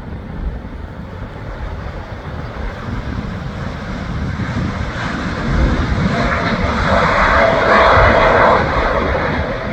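Aircraft engines growing steadily louder as the plane draws near, with a steady whine joining in and the noise peaking about eight seconds in. Wind buffets the microphone throughout.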